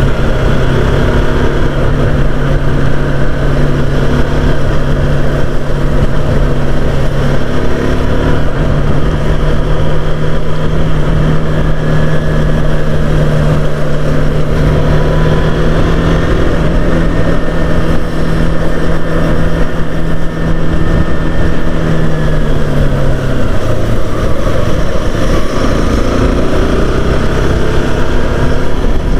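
Motorcycle engine running at a steady speed while riding, over a steady rushing noise. The engine note falls about three-quarters of the way through as the bike slows.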